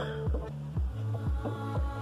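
Background music with a steady beat over sustained tones.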